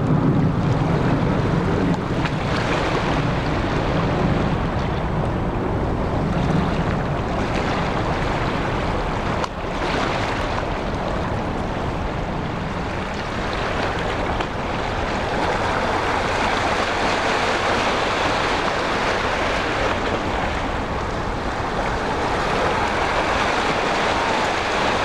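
Wind blowing on the microphone over open water, a steady rushing noise, with a low hum during the first several seconds.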